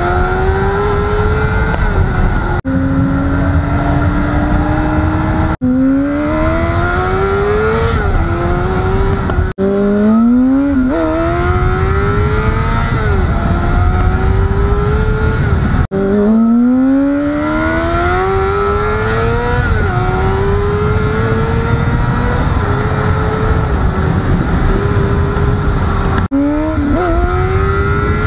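Honda CBR600RR's inline-four engine under way. Its pitch climbs steadily through each gear and drops back at every upshift, with a few sudden brief breaks in the sound.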